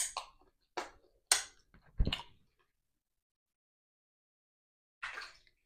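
Close-miked mukbang eating sounds: short, separate mouth noises from eating garri with okra soup. There are four in quick succession in the first two and a half seconds and one more about five seconds in.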